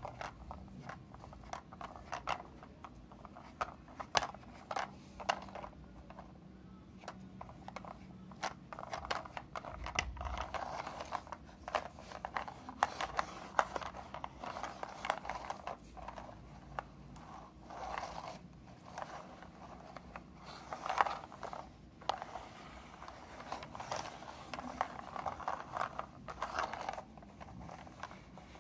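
Plastic toy truck pushed back and forth across a carpet by hand. Its wheels and mechanism give irregular stretches of rattling and rasping, with sharp clicks.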